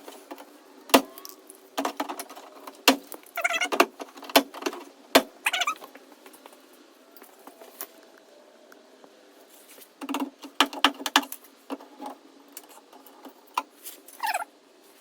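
Pliers clicking and plastic tabs creaking and snapping as they are broken and torn off a truck's fender clip. Sharp clicks come in a run over the first five seconds, with squeaky scrapes among them, and again in a cluster about ten seconds in.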